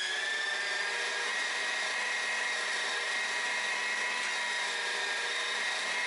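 Electric meat grinder running steadily with a high motor whine while it grinds deer meat trimmings through the auger and plate.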